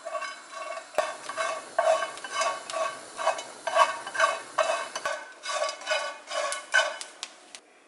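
Small dried anchovies dry-roasting in a nonstick pan, stirred with wooden chopsticks: a dry, rhythmic rustling scrape with light clicks, about two strokes a second, which stops shortly before the end.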